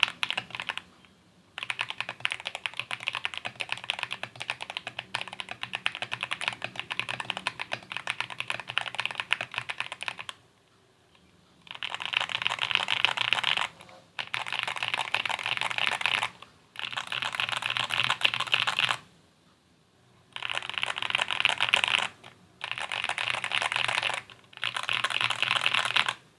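Fast typing on a mechanical keyboard with Outemu Jade White linear switches and PBT OEM-profile keycaps, a dense stream of key clacks. One long run of typing is followed by a short pause, then six shorter bursts of about two seconds each, separated by brief gaps.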